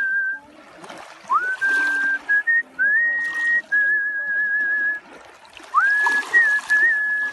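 Artistic whistling: a person whistles a melody in long held notes with a wavering vibrato, several phrases opening with a quick upward scoop into the note. The whistling breaks off twice between phrases, about a second in and about five seconds in, over a steady background hiss.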